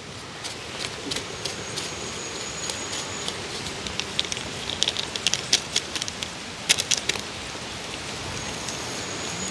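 Plastic seasoning sachet crinkling and clicking in the hands as Maggi seasoning is shaken out of it into a bowl of flour, the clicks thickest around the middle, over a steady hiss. A thin high whine comes in twice.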